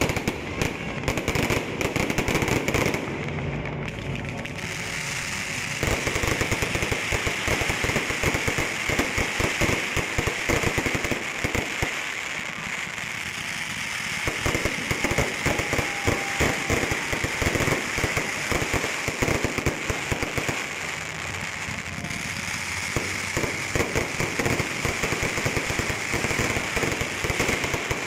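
Fireworks display: rapid, overlapping bangs and crackling from bursting aerial shells over a steady hiss, thinning briefly a few times before picking up again.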